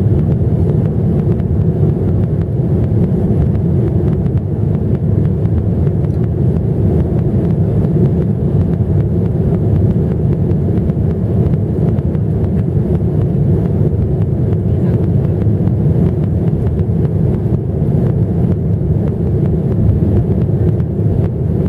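Steady low rumble of a jet airliner's engines at takeoff power, mixed with wind buffeting the microphone.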